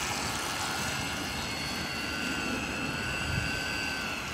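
Steady high-pitched whine of small electric model motors over a hiss, the pitch drifting only slightly, as a radio-controlled model runs at speed.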